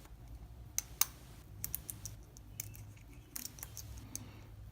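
Lock pick and tension wrench working the pin tumblers of a Wilson Bohannon padlock: faint, irregular metallic clicks as pins are lifted and set.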